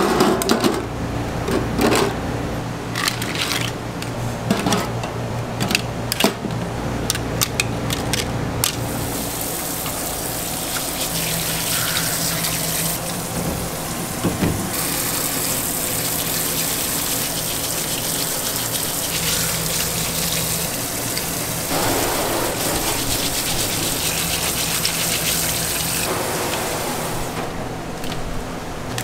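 Shells clacking against each other and against a plastic basket and steel trays. About nine seconds in, a tap starts running steadily into a stainless-steel sink as the shellfish are rinsed.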